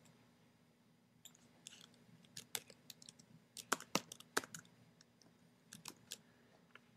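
Faint typing on a computer keyboard: irregular key clicks, a few at a time, as a search is entered.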